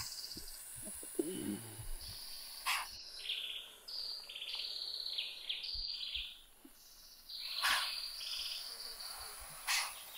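Forest birds and insects chirping in pulsing high-pitched trills, with three short hisses, the loudest about two-thirds of the way through.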